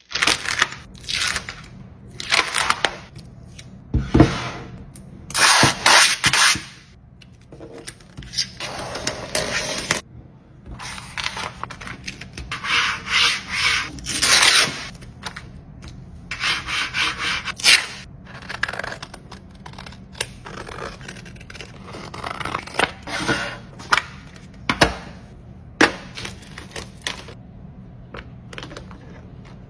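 Adhesive vinyl decal sheets and clear transfer tape being peeled, rubbed and handled: a run of irregular rustling, scraping and crinkling strokes with short pauses between them.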